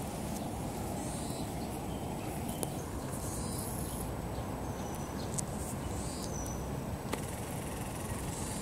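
Outdoor ambience: a steady low rumble with a few short, high chirps of small wild animals every second or two, and a couple of faint clicks.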